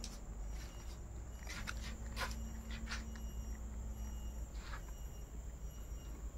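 Faint footsteps crunching on dry leaves and bare earth, a few scattered steps, over a low steady background hum.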